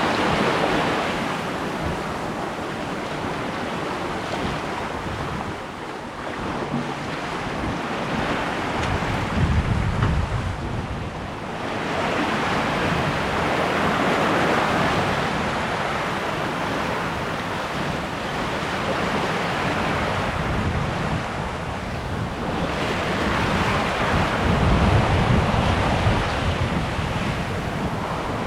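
Water rushing and splashing along the hull of a sailboat under way, with wind gusting on the microphone. The rush swells and fades every several seconds, with heavier wind buffets about ten seconds in and again near the end.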